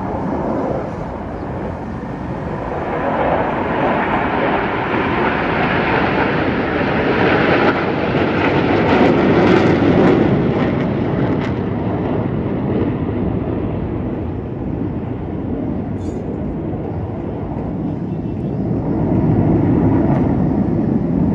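Jet noise from a formation of T-50B jets flying past in an aerobatic display: a continuous rushing sound that swells over the first ten seconds, eases off, and builds again near the end.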